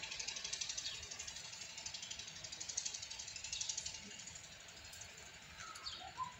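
A high, rapidly pulsing insect buzz, like a cicada chorus, loudest in the first few seconds and fading after about four seconds. Near the end come a couple of short high calls.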